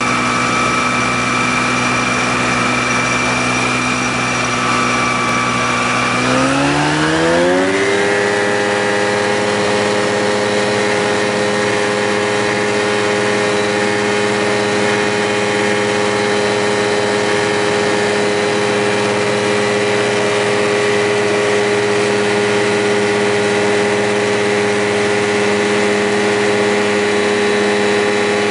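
Rans Coyote ultralight's engine and propeller heard from inside the cockpit: running steadily at low power, then about six seconds in the pitch rises over two seconds as the throttle is opened. It then holds steady at full power for the takeoff run across the grass.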